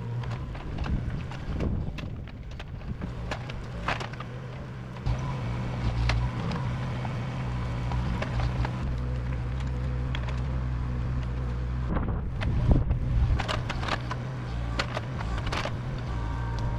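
An engine running steadily, its note getting louder about five seconds in, with scattered knocks and clanks over it.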